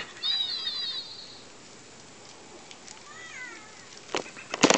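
Young mastiff puppies whining with high-pitched cries: a long wavering one at the start and a shorter one about three seconds in. A few loud knocks and rustles follow near the end.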